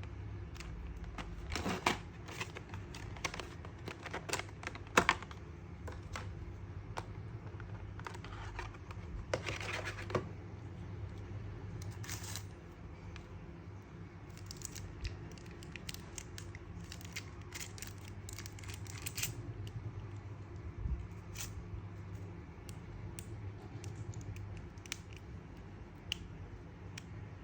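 Action-figure packaging being handled and opened: plastic and cardboard rustling and crinkling, with scattered clicks and taps, busiest in the first half.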